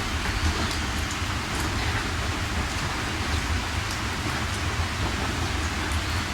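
Steady heavy rain falling on a surface, a constant hiss with a deep low rumble underneath and scattered sharper drop hits.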